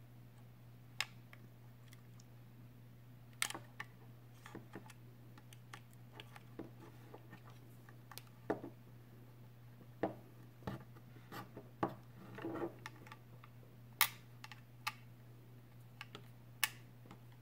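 Utility knife prying a plastic mounting bracket off a 2.5-inch hard drive: scattered, irregular sharp clicks and small scrapes as the bracket's pins are worked out of the drive, over a low steady hum.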